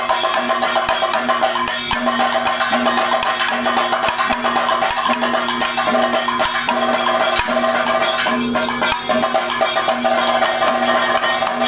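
Kathakali accompaniment of drums and cymbals playing a dense, fast rhythm over a steady held tone, thinning briefly about eight and a half seconds in.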